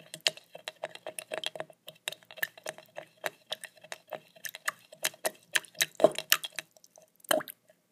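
A skewer stirring honey into water in a small cup, tapping and clicking against the cup's side in a quick run of sharp ticks, several a second, that stops about seven seconds in.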